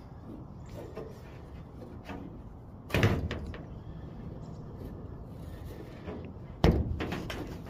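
Handling knocks as a rubber sunroof drain hose and a thin metal fitting are worked by hand against a car's roof: two sharp knocks, about three seconds in and again near the end, over a steady low background rumble.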